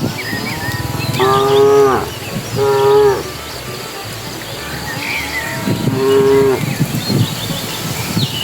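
Cows mooing: three short moos, about a second in, at about two and a half seconds, and near six seconds.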